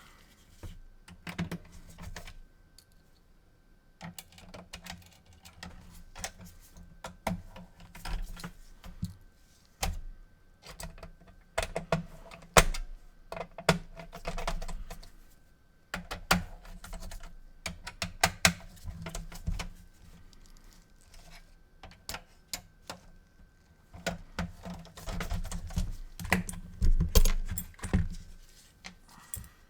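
Handling clatter of small hard parts, a PS4 console's casing and internals being fitted together by hand: irregular clicks, taps and light rattles come in bursts with short pauses between them, under a faint steady high tone.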